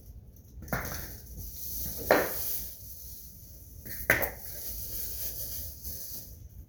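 Cardboard box of a new appliance being opened and handled: three sudden scraping knocks about two seconds apart, with faint rustling between.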